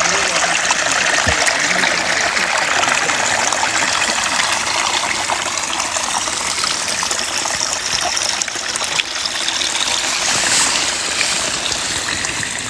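Shallow woodland stream trickling steadily over mud and fallen spruce needles, heard close up.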